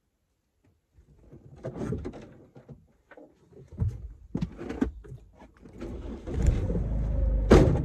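A passenger getting into a car: clicks, knocks and seat rustling as the door is worked and someone climbs in, with a low outdoor rumble coming in through the open door and a loud sharp knock near the end.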